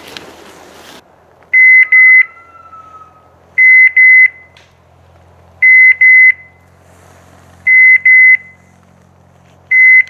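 Pointing dog's beeper collar in point mode: a pair of short, loud, high electronic beeps repeating about every two seconds, the signal that the dog has locked on point.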